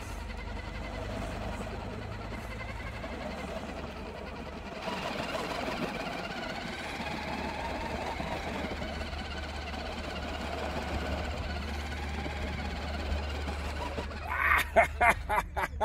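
Electric drive motor and gears of an RC scale crawler running steadily as it climbs along a steep asphalt bank, a little louder from about five seconds in. A voice calls out near the end.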